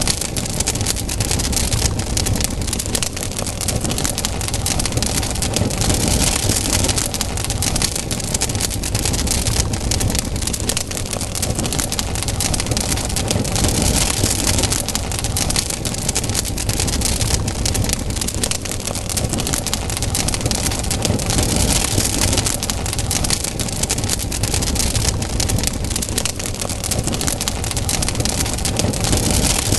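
Campfire burning, a dense, constant crackle and hiss of burning wood with many small pops and a low rumble of flame underneath.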